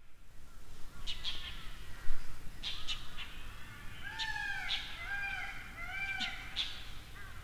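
Dollarbird calls: a few short, sharp high notes, then from about four seconds in a series of arching notes repeated about twice a second. A brief low bump about two seconds in.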